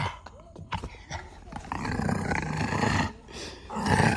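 English bulldog puppy growling through a rubber ring toy clamped in its mouth during tug-of-war play: a long rough growl about a second and a half in, and another starting near the end.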